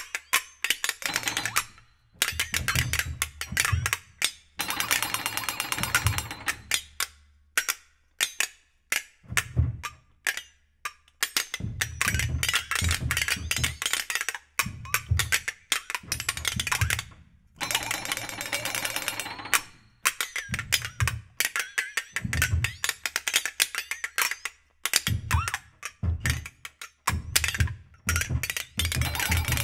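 Contemporary chamber music for two flexatones and piano: rapid, dense clattering strikes in irregular bursts broken by short silences, with low thuds under many of the bursts.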